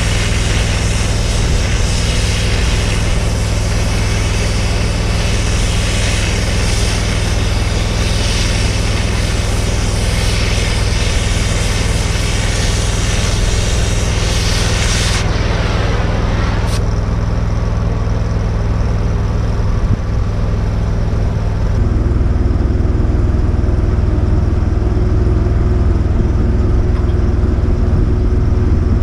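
Torch gouging the cracked steel of an excavator stick: a loud, steady hiss that cuts off suddenly about halfway through. An engine runs steadily underneath and gets a little louder near the end.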